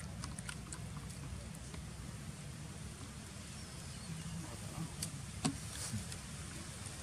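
Steady low outdoor rumble with small clicks of a baby macaque chewing in the first couple of seconds, and one sharp louder tap about five and a half seconds in.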